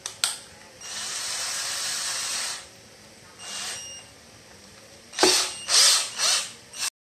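Nankai 12V cordless drill motor run in short trigger pulls while a bit is fitted in its keyless chuck: a click, one run of about two seconds, a brief blip, then three or four quick, louder bursts near the end.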